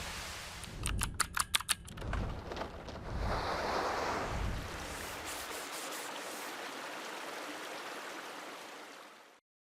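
A steady rushing noise, like running water, with a quick run of about seven sharp clicks a second or so in and a swell about three to four seconds in, fading out near the end.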